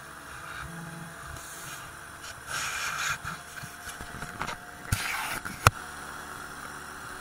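Magni M16 autogyro's engine and rotor running steadily as it rolls across a grass field. Two rushes of louder noise and two sharp knocks close together come about five seconds in, the second knock the loudest.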